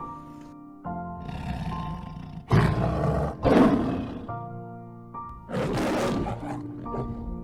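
Background music with long held tones, over which an animal gives three loud, harsh calls: two back to back about two and a half seconds in, and a third a couple of seconds later.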